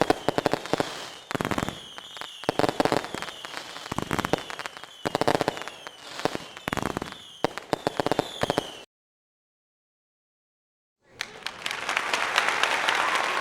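Fireworks: rapid crackling bangs with repeated falling whistles. They stop about two-thirds of the way in, and after a short silence a crowd begins applauding.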